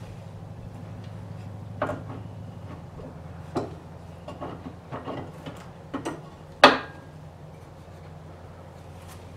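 Metal kayak motor mount being handled and seated on a kayak's stern: a scattered series of clicks and knocks, the loudest about two-thirds of the way through, over a steady low hum.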